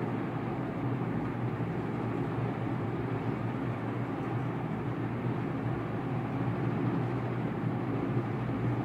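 Steady low hum and rumble of background noise, unchanging throughout, with no distinct strokes or knocks standing out.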